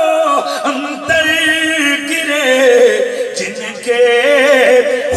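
A man singing an Urdu manqabat (devotional poem) into a microphone, drawing out long ornamented notes that waver in pitch, with short breaks for breath.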